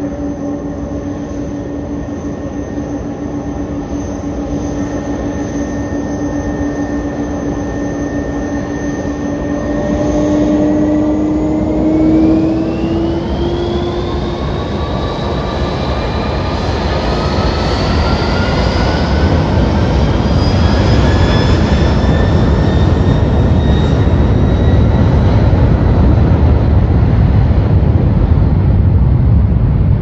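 Airbus A300's Pratt & Whitney PW4158 turbofan engines whining steadily at low thrust, then spooling up for takeoff about ten seconds in. The whine climbs in pitch over several seconds while a broad low noise builds and grows louder as the takeoff roll begins.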